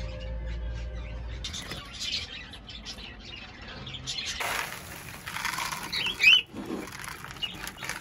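Cockatiels fluttering their wings, with a few short chirps about six seconds in. A low hum cuts off about one and a half seconds in.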